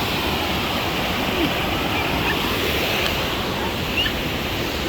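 Steady rush of a waterfall close by, a continuous, even roar of falling water.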